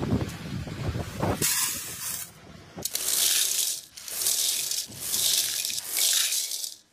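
Dry split chickpeas (chana dal) pouring in a rushing hiss into a steel bowl, in about five separate pours of under a second each with short gaps between. Low rumbling thumps come before the first pour.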